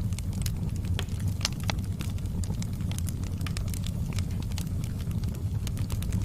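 Campfire burning: frequent, irregular sharp crackles and pops of the wood over a steady low rumble.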